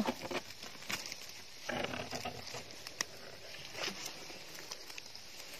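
Dry leaf litter rustling and crackling as hands rummage in it, with scattered sharp clicks of twigs or leaves snapping. A denser rustle comes about two seconds in.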